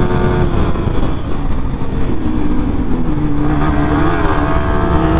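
Yamaha R15 V3's 155 cc single-cylinder engine running at road speed, heard from the rider's seat over wind and road noise. The engine note holds fairly steady, with a brief waver in pitch about four seconds in.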